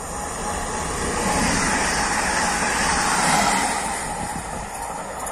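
Electric multiple unit passing close at speed: a rushing of wheels on rail that swells as it approaches, is loudest about three seconds in, then begins to fade as the train goes by.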